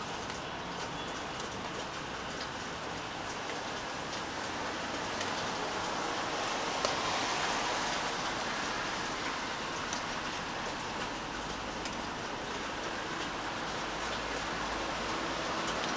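Steady rain falling, with scattered louder drops ticking now and then. The rain noise swells a little for a few seconds in the middle.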